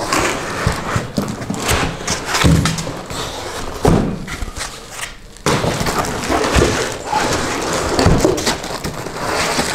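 White foam packing end cap being worked loose and pulled out of a cardboard shipping box: irregular scraping and rubbing of foam against cardboard, with several dull thumps.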